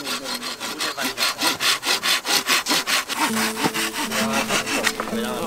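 Hand saw with a red handle cutting through a green bamboo pole, in quick, even rasping strokes about four a second.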